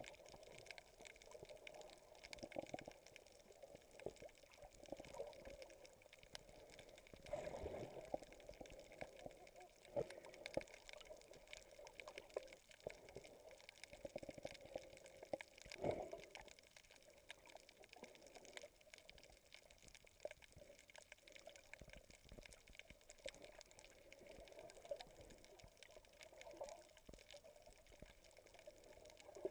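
Faint, muffled water sound heard from a camera held underwater: water sloshing and gurgling around it, with scattered small clicks and a couple of louder swishes about seven and sixteen seconds in.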